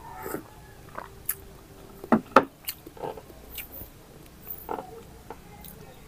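Close-miked eating and drinking: a sip from a mug at the start, then scattered short mouth clicks and smacks, the sharpest pair about two seconds in.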